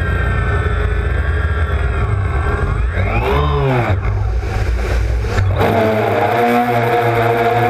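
A DJI Phantom quadcopter's four brushless electric motors and propellers whining, picked up by the onboard camera with wind rumbling on the microphone. About three seconds in the whine rises and falls in pitch as the motors speed up and slow down, and near the end it holds a new steady pitch while the wind rumble drops away.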